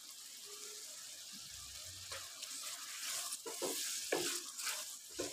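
Tomato-and-spice masala sizzling in a frying pan after a splash of water, as the spices are being fried. From about two seconds in, a wooden spatula stirs and scrapes through it in short strokes.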